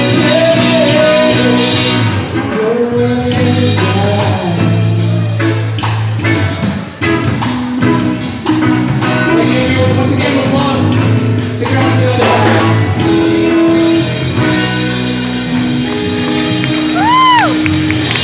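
Live rock band playing: sung vocals over electric guitars, bass and a drum kit, with regular drum and cymbal strokes. A short pitched glide rises and falls near the end.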